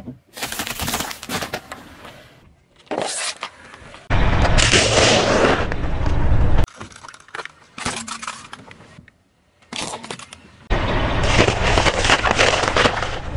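A car tyre rolling slowly over apples and dry instant noodles on asphalt, crushing them with cracking and crunching. The sound comes as a run of short separate takes that each start and stop suddenly, and the tyre on the road adds a deep rumble under the two loudest ones.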